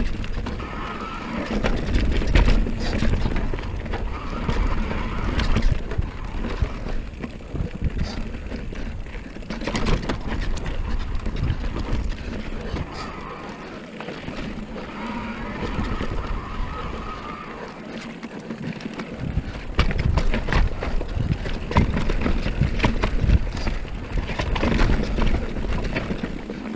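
Haibike electric mountain bike riding down a dirt-and-rock singletrack: tyres running over dirt and rock, with the bike rattling and knocking over the bumps and wind buffeting the helmet or handlebar camera microphone.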